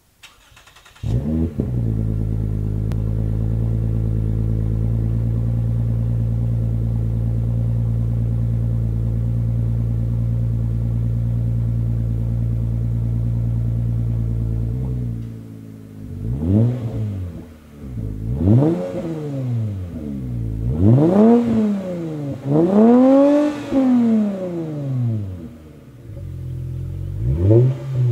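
Lexus IS350's 3.5-litre V6 starting through a REMARK stainless axle-back exhaust with dual slant-cut tips. It catches about a second in, flares briefly, and settles into a steady idle. In the second half come about five quick throttle blips, each rising and falling in pitch, the fourth revving highest.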